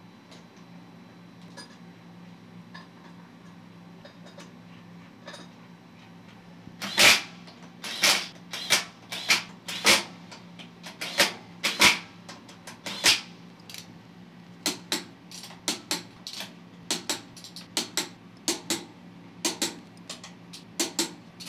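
Ratchet torque wrench clicking and steel tools knocking on steel as the bolts of pendulum-jaw adapter plates are run down on a machine vise. Only a low steady hum is heard until about seven seconds in; then come sharp metallic clicks, loud and irregular at first, then lighter and more even, often in pairs about two a second.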